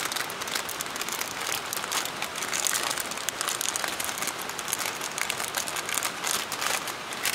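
A plastic food packet crinkling as it is handled close up, over the irregular crackle of a small wood-burning camp stove.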